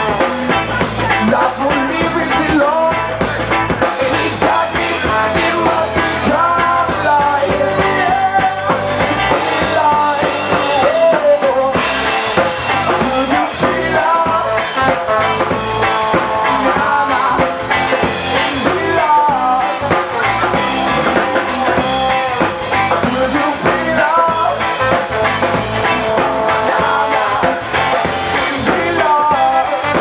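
Live reggae band playing an instrumental passage: a trombone leads with sliding melodic lines over electric guitar, bass guitar and drum kit.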